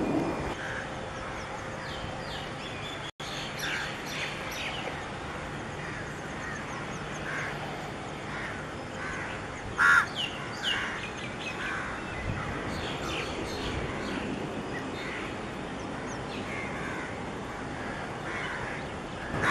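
Crows cawing and other birds calling in short, scattered calls, the loudest just under ten seconds in, over steady outdoor background noise with a faint low hum. The sound drops out briefly about three seconds in.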